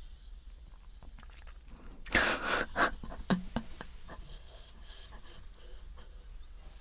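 A sharp, loud breath out close to the microphone about two seconds in, followed by a few small mouth clicks.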